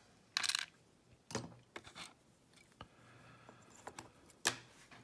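Small metal parts of a euro lock cylinder being handled as it is taken apart: a brief metallic rattle under a second in, then a few light separate clicks, the sharpest near the end.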